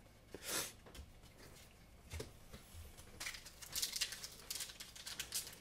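Foil Pokémon booster pack wrapper crinkling as it is handled and opened: a brief rustle about half a second in, then dense crinkling from about three seconds in.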